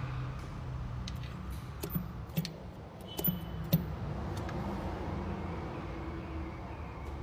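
Car engine running with a steady low hum, and a few sharp, irregular clicks or knocks between about two and four seconds in.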